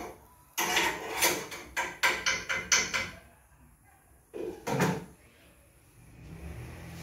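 A run of sharp knocks and bumps in a small room, then a single heavier knock nearly five seconds in.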